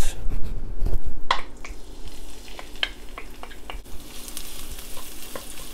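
Minced garlic and fermented black beans sizzling as they hit hot oil in a nonstick wok. There are a few knocks as they are scraped in with a wooden spatula, then ticks of the spatula stirring them. The sizzle grows steadier and brighter about four seconds in.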